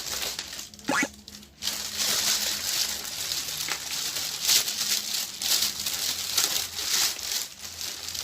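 Plastic toy packaging crinkling and rustling as it is handled, in a run of short irregular crackles.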